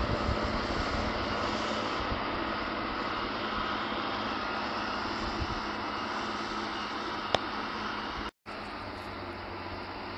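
Large farm tractor's diesel engine running steadily under load while pulling a tillage implement, heard from the field edge with wind rumbling on the microphone. The sound cuts out for a moment a little after eight seconds in.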